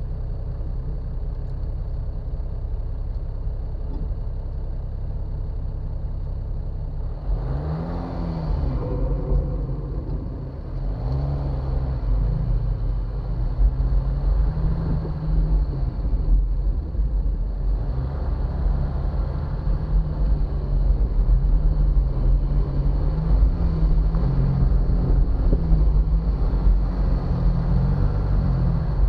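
Jeep Wrangler Rubicon engine idling steadily, then revving up about seven seconds in as the Jeep pulls away and drives off-road. The engine note rises and falls with the throttle.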